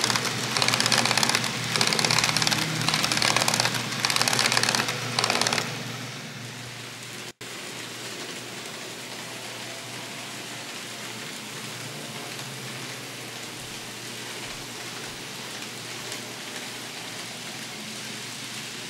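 An N scale model passenger train rolling past close by: a loud, hissy clatter of wheels on track with uneven clicks, lasting about six seconds. After that comes a quieter, steady hiss.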